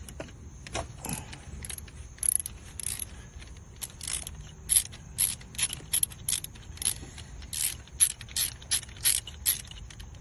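Hand ratchet with a socket being worked in short back-and-forth strokes on a bolt during alternator removal. The pawl gives repeated quick clicking bursts, sparse at first and then about two to three a second.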